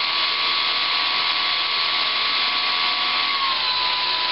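Brushless electric motor of an R/C plane spinning a Master Airscrew 8x6 three-blade propeller in a static run-up: a steady whirring whine that eases slightly lower in pitch about three and a half seconds in.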